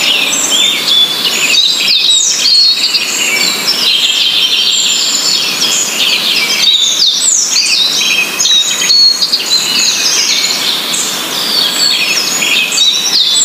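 A dense chorus of many birds chirping and twittering without pause: overlapping high, short chirps and quick falling whistles.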